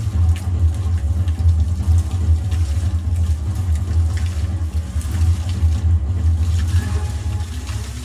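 Water jets of a dancing fountain spraying and splashing into the basin, with music playing over a steady low rumble.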